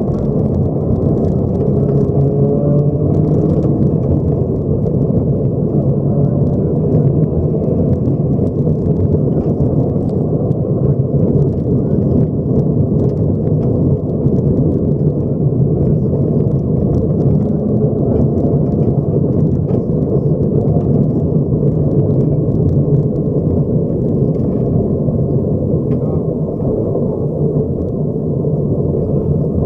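Cabin noise in a Subaru rally car at speed on gravel: the engine pulls hard under load and the tyres rumble on the loose road surface, with many small stones ticking against the underbody. It speeds up, then eases off later.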